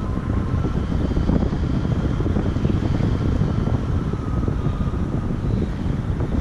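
Airflow of a paraglider in flight buffeting the camera's microphone: a steady, heavy wind rumble, with a faint wavering whistle above it.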